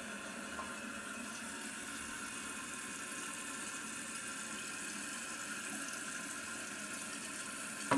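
Kohler toilet refilling after its water is turned back on: the fill valve runs and water flows into the bowl in a steady hiss.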